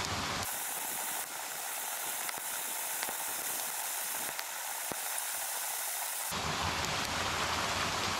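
Steady hiss of falling water. The low rumble beneath it drops away about half a second in and comes back near the end.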